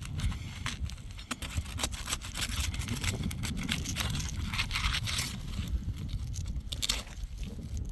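Asphalt roof shingles being pried up and lifted loose: continuous scraping with many scattered sharp cracks as the brittle shingles tear and break apart while they are detached.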